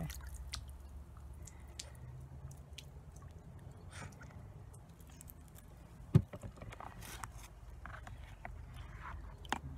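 Small scrapes, clicks and crunches from a plastic gold pan of gravelly concentrates being handled in a tub of water, with a sharp knock about six seconds in, over a steady low hum.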